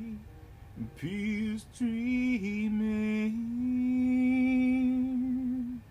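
A man singing a slow line of a few drawn-out words, with shifts between held notes and one long held note near the end.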